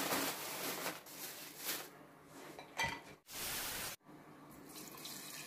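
Crinkly rustling of a plastic bag of dried orange peel being handled, in several short bursts.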